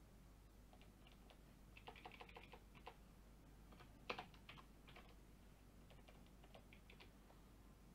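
Faint typing on a computer keyboard: a quick run of keystrokes about two seconds in, one sharper click about four seconds in, then scattered keystrokes.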